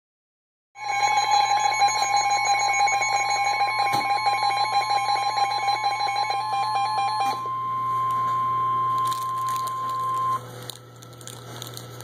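NOAA Weather Radio receiver sounding the steady single-pitch warning alert tone, with the receiver's own rapid alarm beeping over it; the beeping stops about seven seconds in and the tone cuts off about ten seconds in. The tone signals that a severe thunderstorm warning broadcast is about to follow.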